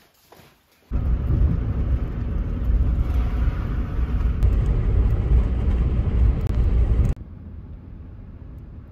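Steady road and engine rumble inside a moving car's cabin, starting abruptly about a second in. It drops suddenly to a quieter steady rumble about seven seconds in.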